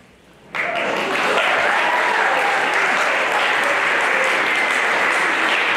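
Audience applauding in a hall, starting suddenly about half a second in and keeping up steadily.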